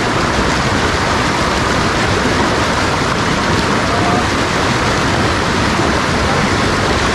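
Stream water rushing steadily over rocks in a shallow rocky cascade.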